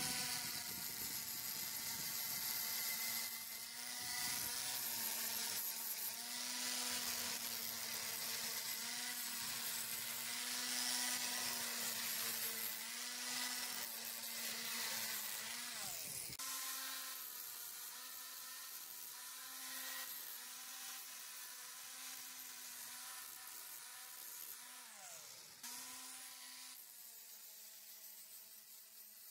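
Electric angle grinder with a flap disc grinding rust off an iron railing: a steady motor whine over the hiss of the disc on the metal. The whine wavers with the work, dips briefly in pitch twice, and fades toward the end.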